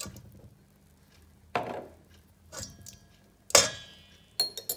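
A metal spoon knocking and clinking against a stainless steel mixing bowl as sour cream is scraped off it: about five separate knocks, the loudest about three and a half seconds in, ringing briefly.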